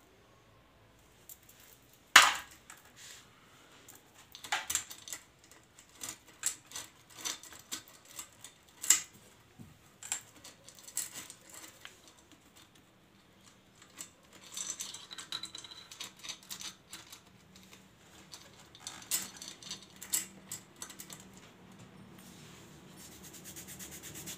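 Small metal engine parts and hand tools clinking and rattling as they are handled, with a sharp metallic knock about two seconds in and scattered clinks after it.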